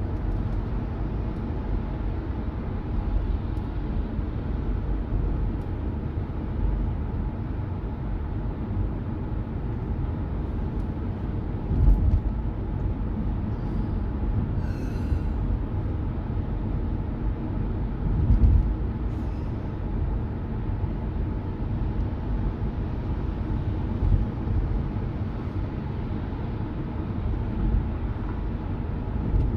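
Steady road and engine rumble inside a moving car, with two louder low bumps partway through.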